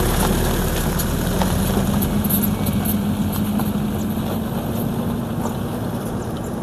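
Toyota Hilux pickup truck driving away, its engine running with a steady note that slowly fades as it moves off.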